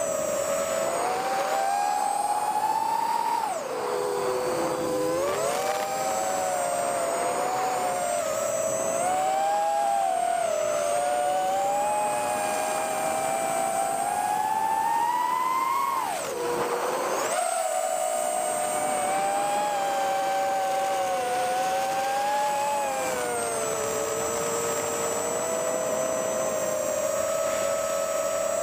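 Brushless motors and 3-inch propellers of a toothpick micro quadcopter (Eachine 1105 5200kV motors, Emax Avan 3x2.4 props) whining in flight, heard from a camera mounted on the quad. Several close whine pitches rise and fall together with throttle, dropping sharply about four seconds in and again about sixteen seconds in.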